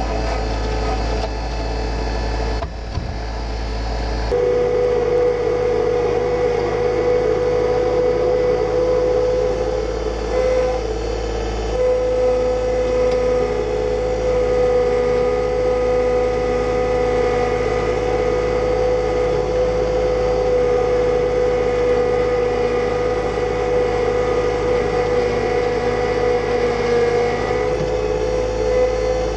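John Deere 2025R compact tractor's three-cylinder diesel engine running steadily under load while pulling a rock rake. A steady whine comes in about four seconds in and holds.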